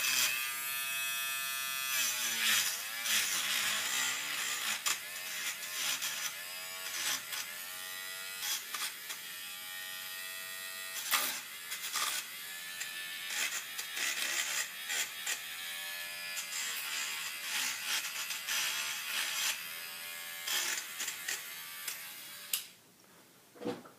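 Small handheld motorised tool spinning a fine wire brush against dirty press-on connector pins to polish them clean: a buzzing whine whose pitch dips and recovers again and again as the brush is pressed onto the metal, with scratchy ticks. It stops near the end.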